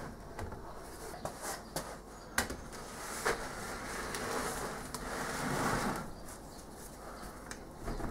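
A wooden moulding flask packed with rammed foundry sand being rolled over and set down on the moulding board: soft scraping and rustling with a few sharp wooden knocks, the clearest two about two and a half and three and a quarter seconds in.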